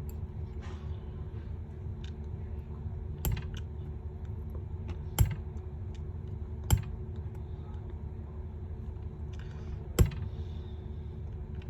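Small repair tools clicking and tapping against the phone as glue is worked loose: four sharp clicks a couple of seconds apart with a few fainter ticks, over a steady low hum.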